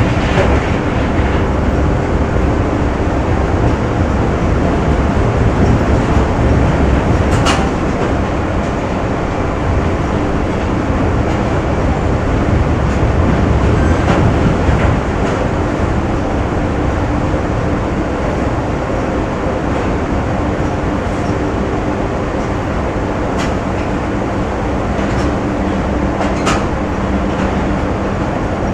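Factory machinery ambience: a loud, steady rumble of running machines with a few steady hums. Two sharp knocks stand out, one about a quarter of the way in and one near the end.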